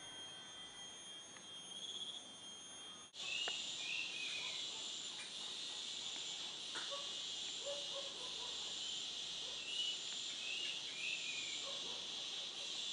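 Insect chorus: a steady high trill that switches abruptly about three seconds in to a denser, louder chorus. Short downward-gliding bird chirps and a few low short calls are scattered through the later part.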